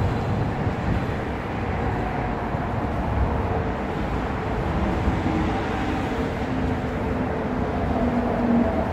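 Steady rumble of passing vehicle traffic, with faint drawn-out tones that slowly sink in pitch.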